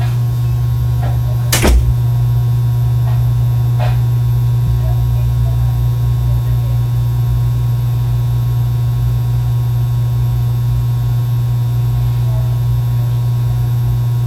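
A loud, steady low hum, with a single sharp knock about one and a half seconds in.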